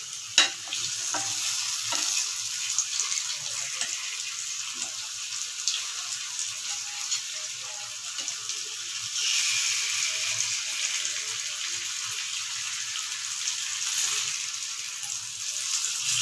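Masala-coated yam slices sizzling as they shallow-fry in oil in a pan. A steel spatula clicks against the pan now and then as the slices are turned. The sizzle grows louder about nine seconds in.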